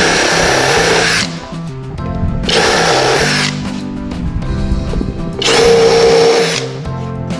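Worx WU369 electric drill run in three short bursts of about a second each, with a steady motor whine in the last one, over background music.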